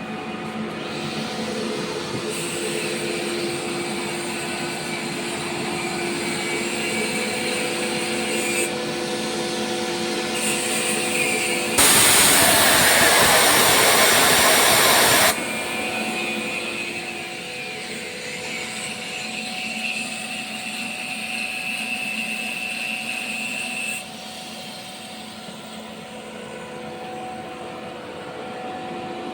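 A 7.5 kW (10 HP) electric screw air compressor running with a steady machine hum. About twelve seconds in, a loud rush of hissing air lasts about three and a half seconds, then cuts off suddenly.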